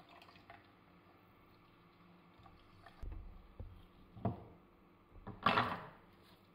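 Orange halves being juiced with a fork and by hand over a glass jug: quiet at first, then a few soft knocks about three and four seconds in, and a louder, longer squeezing sound near the end.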